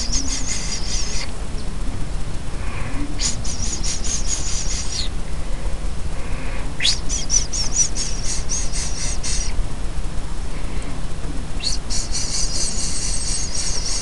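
Nestling songbirds giving rapid, high-pitched chattering begging calls in four bursts of one to two seconds each. A steady low rumble runs underneath.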